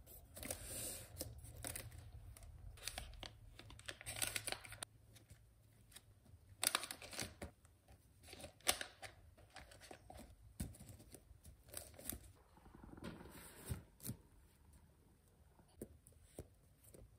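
Faint handling noises in a small room: scattered light clicks and knocks, with short stretches of rustling, like paper or packaging being torn or crumpled.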